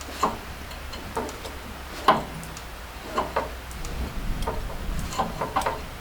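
Irregular metallic clinks and knocks as a roller drive chain and a chain breaker tool are handled, about eight to ten separate hits with the loudest about two seconds in.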